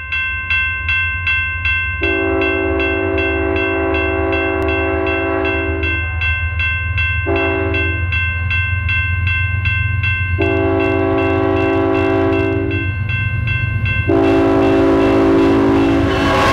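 Diesel locomotive approaching, sounding its air horn in a chord: a long blast, a short one, then two more long blasts, over a steady low rumble. A bell rings about three times a second and stops as the last blast begins, when the noise of the passing train grows.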